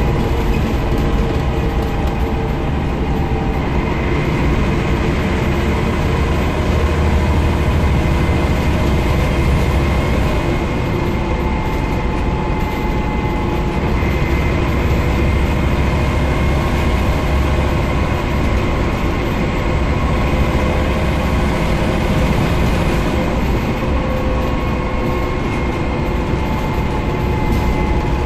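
Scania CN94UB Omnicity single-deck bus under way, heard from inside the saloon: a steady drone of diesel engine, drivetrain and road noise, with faint thin whining tones held steady above it.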